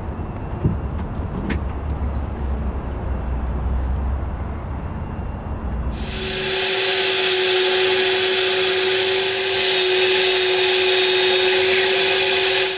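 A corded electric drill starts about six seconds in and runs steadily with a high whine, drilling into the boat's bulkhead, then cuts off suddenly. Before it there is only a low rumble with a few light knocks.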